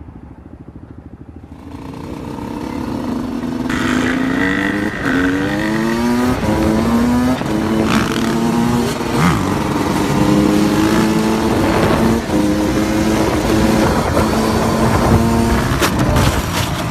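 Dirt-bike engines revving high, their pitch climbing in sweeps and steps as the bikes shift up, then held fairly steady. Near the end come a few sharp knocks as a bike goes down on the tarmac.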